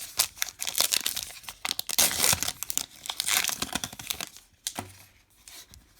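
A baseball card pack's wrapper being torn open and crinkled: a dense run of rustling and tearing that dies down after about four seconds.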